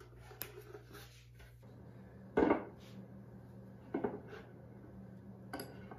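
A few dull wooden knocks and handling sounds as a small bookcase is set on a workbench and a board and wheel marking gauge are fitted against it. The loudest knock comes about two and a half seconds in, with another around four seconds.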